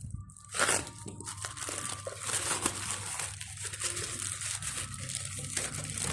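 Packaging being handled and unwrapped, crinkling and crackling continuously, with a louder rustle about half a second in.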